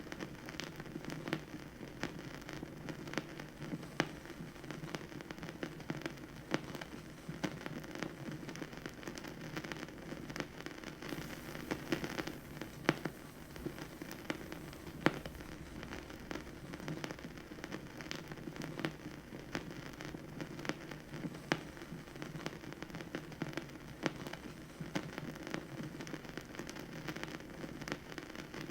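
Vinyl record surface noise on a record player: a steady crackle with many irregular sharp pops, a few louder ones near the middle.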